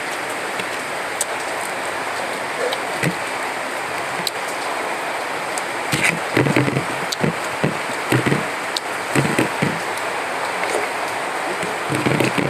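Eating by hand: fingers working rice on a ceramic plate and chewing, with small scattered clicks and soft bursts around the middle, over a steady background hiss.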